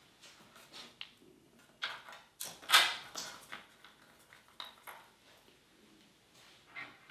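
Scattered clicks and knocks of hands working on a plastic motorcycle windscreen, fitting its screws into well nuts. The loudest is a brief scraping rustle a little under three seconds in.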